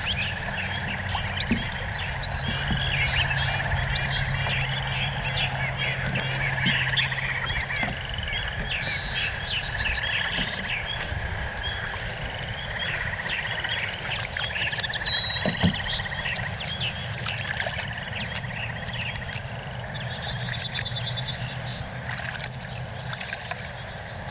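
Many birds singing at once, with overlapping chirps and fast trills, over a steady outdoor hiss. A low hum runs for a few seconds early on, and a single knock sounds about fifteen seconds in.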